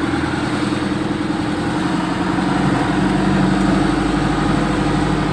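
Six-wheeler mini dump truck's engine running steadily at low revs as the truck moves slowly in a low gear, easing over a road hump.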